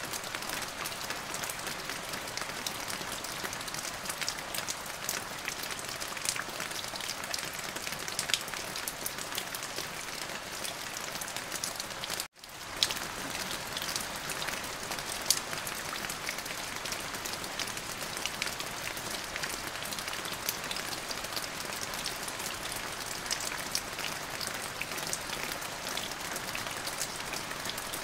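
Steady rain falling, with many separate drop strikes pattering through it. It cuts out for a split second about twelve seconds in and resumes.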